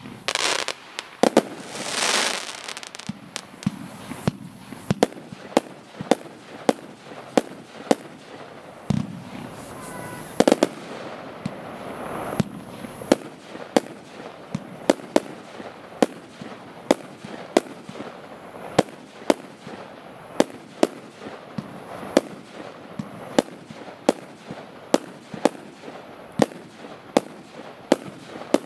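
Consumer fireworks battery (cake) firing a long run of evenly spaced shots, about three bangs every two seconds, with a louder rushing burst about two seconds in.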